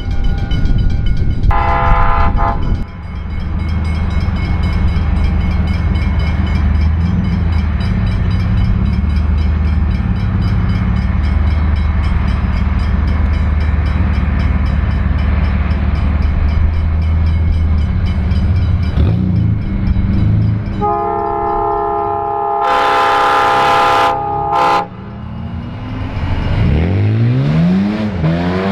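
Diesel freight locomotive running with a heavy low engine rumble, sounding its multi-note chime horn briefly about two seconds in and again in a longer blast about three-quarters of the way through. Near the end an engine note sweeps up and down in pitch.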